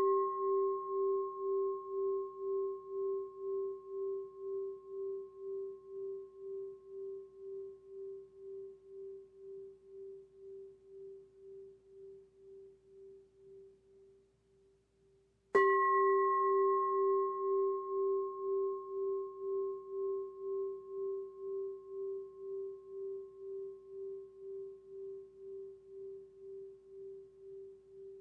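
A singing bowl rings on from a strike just before, its deep tone wavering in slow pulses as it fades. It is struck again about halfway through and rings down once more.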